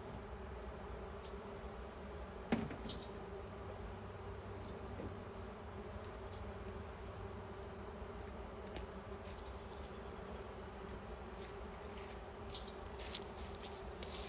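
Honey bees buzzing steadily around the hives, a low continuous hum, with a single sharp knock about two and a half seconds in.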